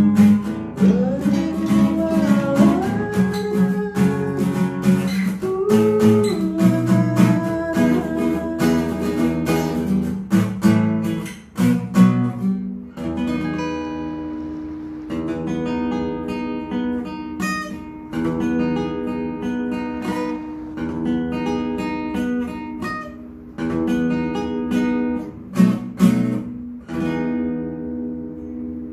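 Acoustic guitar strumming chords while a voice sings long, wavering notes over it. About twelve seconds in the voice drops out and the guitar carries on alone, softening toward the end.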